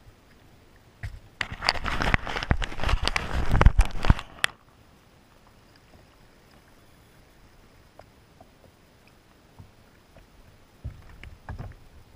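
Water splashing and sloshing at the side of a sit-on-top fishing kayak, a loud rush of about three and a half seconds starting about a second in. A few light knocks follow near the end.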